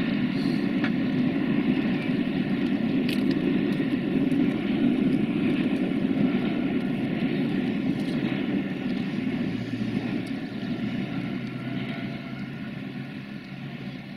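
Loaded freight wagons of a stone train rolling away over the rails and a steel truss bridge: a steady rumble of wheels on track with a few faint clicks, fading over the last few seconds as the train recedes.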